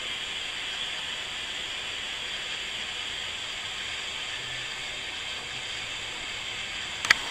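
Steady hiss of a canister camp stove's gas burner running under a pot of water that is coming to the boil. A single sharp click comes near the end.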